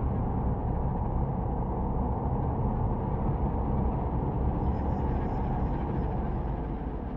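A steady low rumble, easing off a little near the end.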